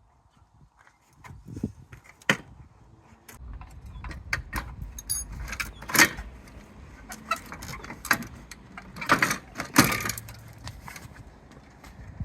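Hand work on a car's body panels: scattered clicks, knocks and rattles of clips and parts being handled, with a low rumble from about three seconds in.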